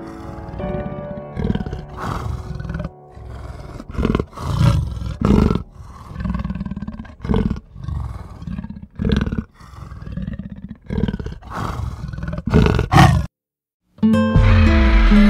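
A large wild animal calling in a run of short, loud roars and grunts, about one or two a second. It cuts off suddenly near the end, and after a brief silence guitar music begins.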